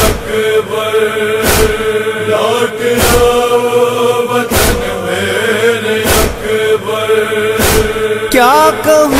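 A crowd of male mourners chanting a noha refrain together, with a sharp beat falling about every one and a half seconds. Near the end a solo male reciter's voice comes in, singing the next line.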